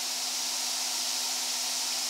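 Air track blower running: a steady hiss of air with a faint steady hum underneath.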